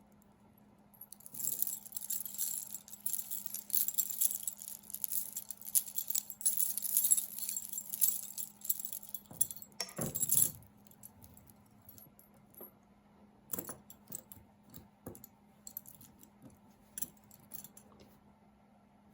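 Costume jewelry clinking and jingling as it is handled: a busy stretch of rattling beads and chain for about the first half, then only a few scattered clicks, over a faint steady hum.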